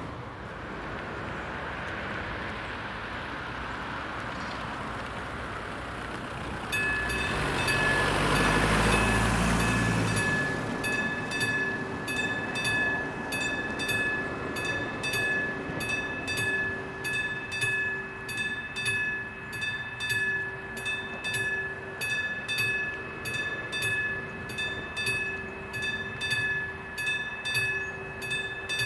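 Level-crossing warning bell of an AŽD 71 crossing starting about seven seconds in and ringing in an even, rapid rhythm as the crossing activates for an approaching train. Around the time the bell starts, a brief rumbling rush of noise swells and fades, peaking about nine seconds in.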